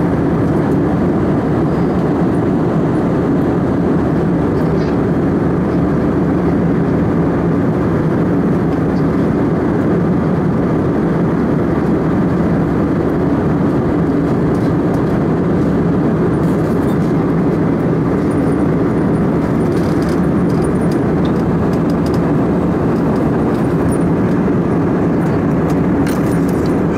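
Airplane in flight: a loud, steady drone of engine and cabin noise that does not change.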